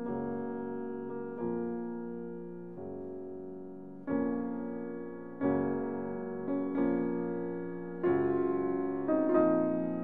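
Background piano music: chords struck about every second and a half, each left to fade.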